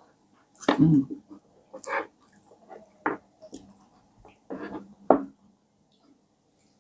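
Close-up mukbang eating sounds of brown stew pig trotters being eaten: wet chewing and lip smacks in about five separate short bursts, the loudest about a second in.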